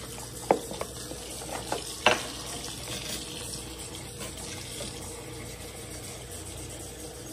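Kitchen tap running into the sink as a bloody meat package is rinsed out, with a few knocks and clatters in the first two seconds.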